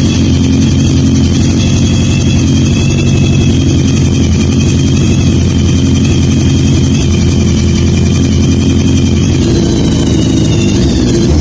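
Kawasaki GPZ1000RX's inline-four engine idling steadily.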